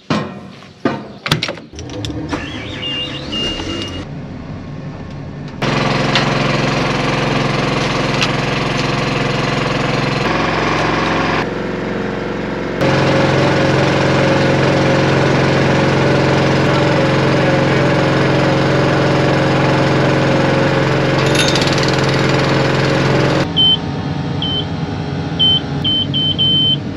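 An engine runs steadily through most of the stretch, after a few knocks at the start. Near the end, short electronic beeps sound as numbers are keyed into the sprayer's cab display.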